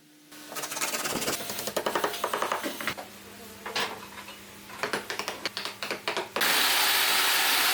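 Irregular clicks and knocks of wood and tools being handled, then about six seconds in a loud, steady rasping noise starts abruptly: a power tool sanding wood.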